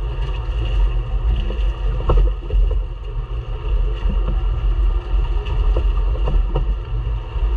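Ram Power Wagon pickup's front wheel and mud tyre rolling over a wet, muddy trail, picked up close under the truck: a steady low rumble with scattered knocks and clicks from the running gear and stones.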